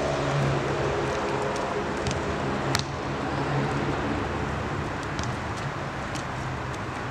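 Steady low hum of a running motor vehicle engine and urban traffic. A few sharp knocks from the basketball in play, the loudest about three seconds in.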